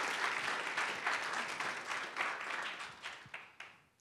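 Audience applauding, dense clapping that thins out and dies away over the last second.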